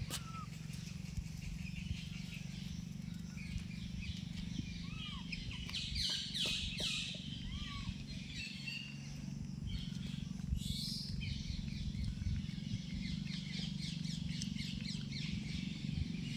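Scattered short animal chirps, some rising and falling quickly in pitch, over a steady low hum. A cluster of louder, noisier high squeaks comes about a third of the way through, and another about two-thirds through.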